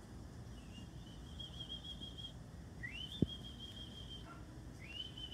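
High, drawn-out whistling tones, three in a row, each sliding up and then held for a second or two with a slight waver. A single sharp knock sounds about three seconds in.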